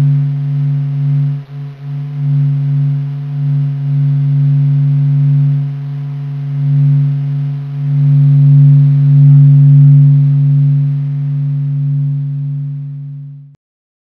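Sonification of the Sun's internal sound waves measured by the SOHO probe, compressed into the audible range. It is a low, steady drone of a few held tones that swells and dips, louder in the middle, and cuts off suddenly near the end.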